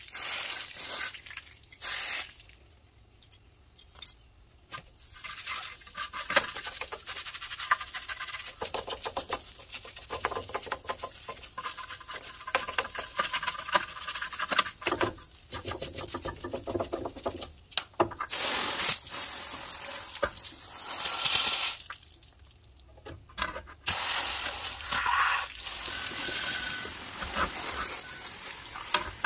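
Water spraying from a hose nozzle onto a hand-held metal brake caliper bracket, rinsing off degreaser, with stretches of a stiff nylon brush scrubbing the part. The spray is heard at the start and again for long spells in the later part. The middle is mostly rapid scratchy brush strokes, with two short quiet pauses.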